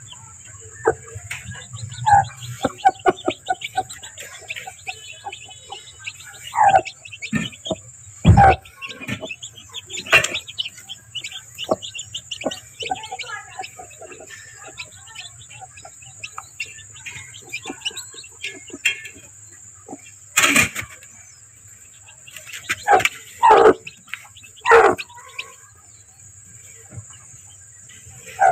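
Chickens calling: many short, high peeps of newly hatching chicks, with a few louder, lower calls from the broody hen sitting on them. A couple of sharp knocks and a steady high-pitched whine run underneath.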